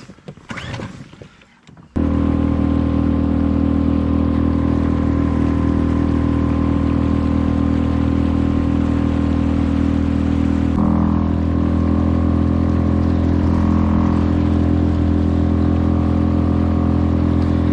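Outboard motor on a small inflatable boat running steadily under way. It cuts in abruptly about two seconds in, and its tone shifts slightly about eleven seconds in.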